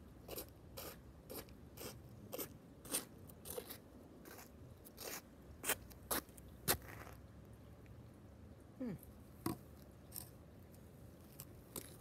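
Sneakers stepping and scuffing on a gritty asphalt driveway: irregular light crunching steps and clicks, close together at first and sparser later, with a short falling squeak about nine seconds in.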